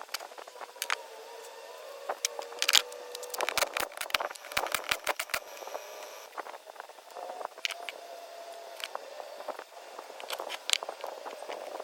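Sharp metallic clinks and knocks of tools and parts being handled while a car gearbox is worked on, clustered in a quick run a few seconds in, over a steady hum.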